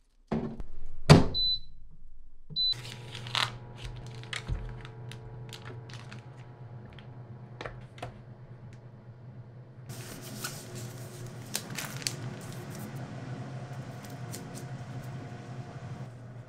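A door shuts with a thunk, a kitchen appliance's panel gives two short high beeps, and the appliance starts running with a steady low hum. Light knocks and clicks sound over the hum.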